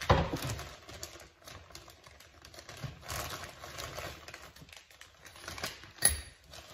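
Clear plastic packaging crinkling and rustling as parts of a kit are handled and pulled from the bag, with scattered small clicks and knocks. A knock right at the start and a sharp click about six seconds in stand out.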